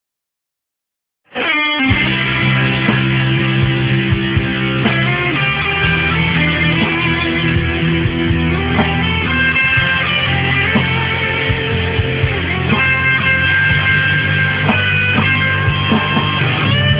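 Instrumental rock band intro led by electric guitar over bass and drums, starting suddenly about a second in after silence.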